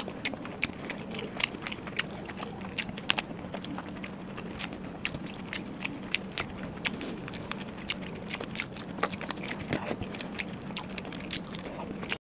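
Close-miked chewing of flatbread dipped in paneer butter masala gravy: a dense, irregular run of wet smacks and clicks from the mouth.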